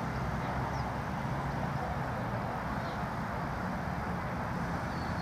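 Steady outdoor background noise, mostly a low rumble, with a few faint short high chirps.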